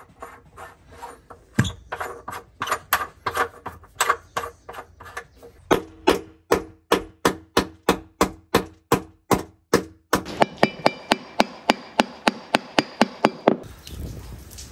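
A hammer knocking on a bronze through-hull fitting in repeated sharp blows, about three a second. After a short pause comes a faster run of about five blows a second with a ringing tone, then the blows stop.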